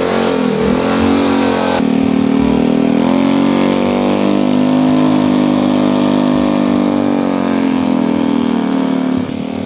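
Motorcycle engine running steadily at riding speed, its pitch drifting a little up and down as the throttle changes.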